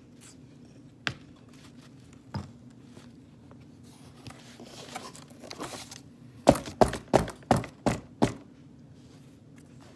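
Cardboard box and panel being handled and bumped close to the microphone: a couple of single knocks, then a quick run of about seven thunks over two seconds in the second half.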